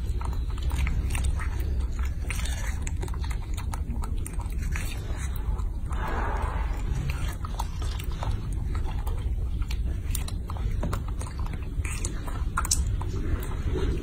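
Baby macaque biting and chewing strawberries: irregular small wet clicks and smacks throughout, over a steady low rumble.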